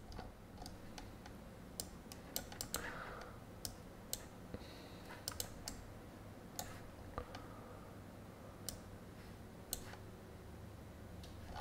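Faint, irregular clicking of a computer mouse and keyboard, scattered single clicks and short runs, over a faint low hum.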